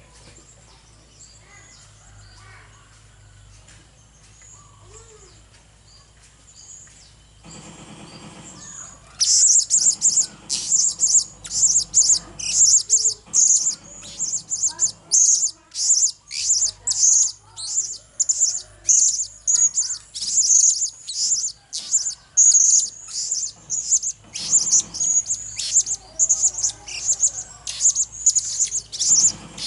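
Blue-crowned hanging parrot calling: a fast, loud run of short, shrill, high chirps, two or three a second, starting about nine seconds in after a quiet stretch.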